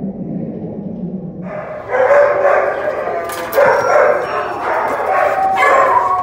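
Background music for about the first second and a half, then dogs barking in several loud bursts.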